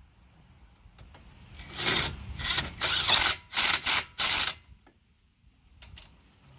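Hand ratchet wrench clicking in about six short strokes from about two seconds in, tightening bolts on a brake caliper.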